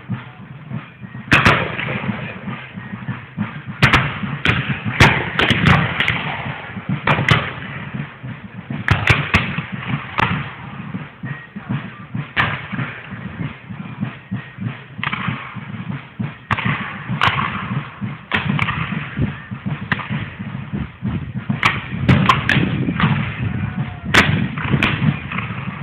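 Black-powder gunfire of a reenacted Civil War battle: a dozen or more scattered shots at irregular intervals, some close together.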